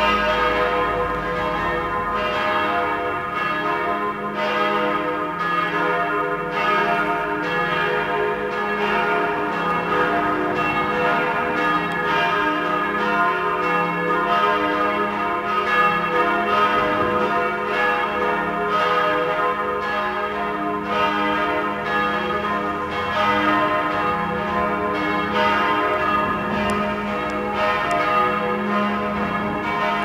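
Church bells pealing together, their strokes overlapping in a continuous ringing of many tones.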